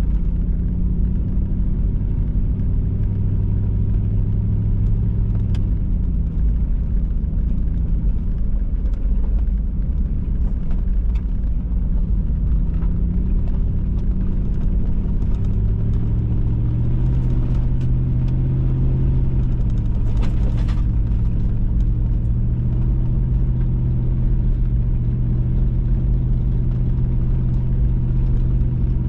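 Vehicle engine running with low tyre rumble while driving a dirt trail. The engine note drops about five seconds in and rises again as it picks up speed a few seconds later. There is a brief rattle about twenty seconds in.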